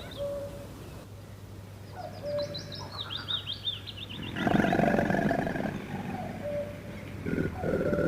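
Crocodile growling: two rough, low, rumbling growls, the first about halfway through and the second near the end, with birds chirping in the background before them.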